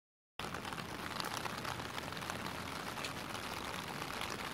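Rain falling steadily on wet concrete: an even hiss studded with the ticks of individual drops, starting about half a second in.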